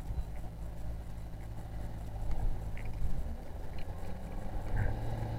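Motorboat engine running steadily, a low drone whose pitch shifts about three seconds in and again near the end, under a rush of wind and water.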